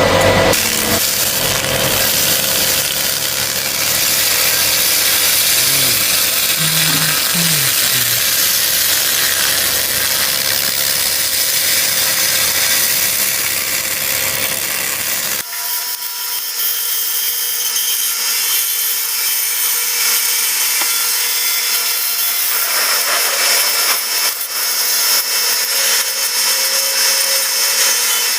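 200 W pulsed laser cleaning machine ablating rust and dirt from a clutch pressure plate: a loud, steady, harsh hiss. About halfway through it changes abruptly as its deeper part drops away.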